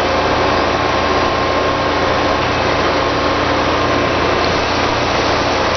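A heavy machine's engine running steadily, holding an even speed with no revving.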